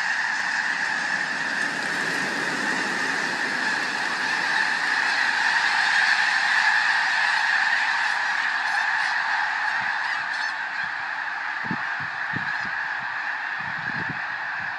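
A dense, continuous chorus of thousands of snow geese honking as the flock takes flight in alarm. The calls swell to their loudest about midway and ease slightly near the end.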